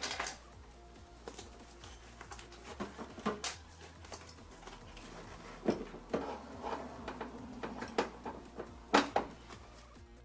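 Irregular knocks, clicks and rattles of a window regulator rail and its fittings being worked into place inside a van door, the loudest knocks about six and nine seconds in. Faint background music runs underneath.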